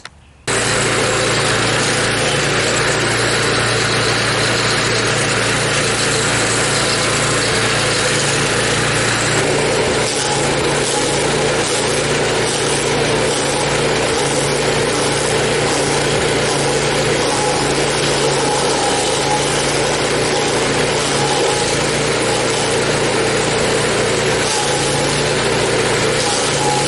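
Small rented stump grinder's gasoline engine running steadily at working speed, its cutter wheel grinding out a tree root. The sound starts abruptly about half a second in.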